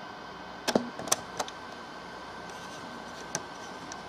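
Telephone conference-call line hiss with a faint steady high tone, broken by five sharp clicks: three within the first second and a half, then two fainter ones about three and a half and four seconds in.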